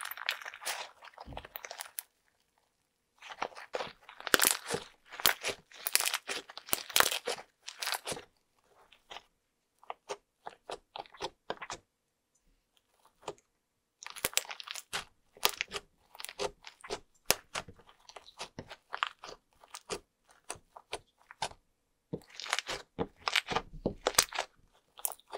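Fluffy slime studded with foam beads being squeezed, poked and pressed by hand: dense crunchy crackling and popping in stretches of a few seconds, with short pauses in between.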